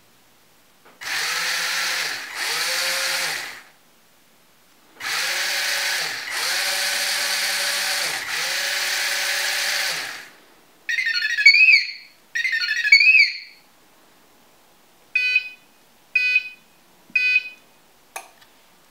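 Small DC gear motors of a 4WD robot car chassis whirring in five bursts, each speeding up and winding back down as the drive is switched on and off from a phone. Then two warbling electronic chirps, three short beeps and a click near the end.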